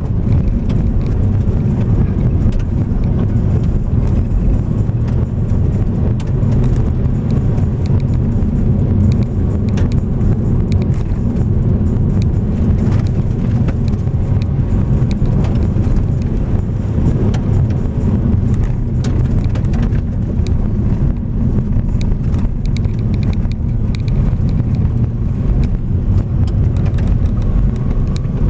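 Car driving along a rough, potholed road: a steady low rumble of engine and tyres, with scattered small ticks and knocks throughout.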